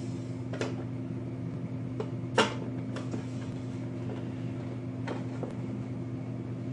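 Styrene plastic wall sections of a model grain elevator kit being handled and pressed into place, giving a few light clicks and taps, with one sharper click about two and a half seconds in. A steady low hum runs underneath.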